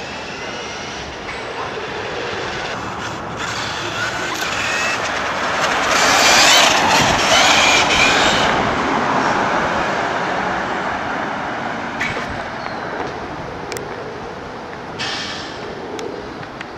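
A car driving past on the street, its tyre and engine noise swelling to a peak about six to eight seconds in and then fading away.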